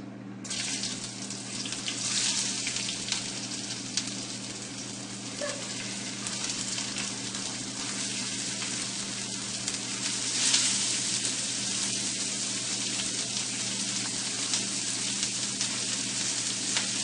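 Chopped onions sizzling in hot oil in a frying pan. The sizzle starts suddenly about half a second in and runs on steadily, with a few light knocks.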